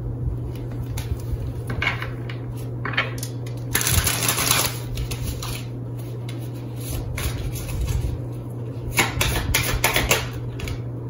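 Tarot cards being shuffled and handled: bursts of quick papery clicking, the longest about four seconds in and another cluster around nine to ten seconds, over a steady low hum.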